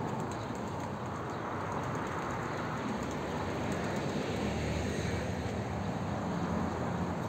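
Steady low hum of road traffic, with a low rumble swelling slightly about four to five seconds in.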